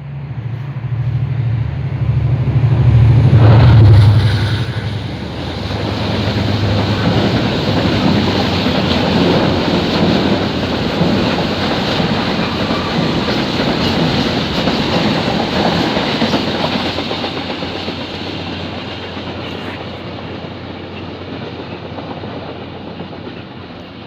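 A class 071 diesel locomotive hauling a freight train passes close by. Its engine is loudest about four seconds in, then the wagons' wheels rattle on the track, slowly fading away.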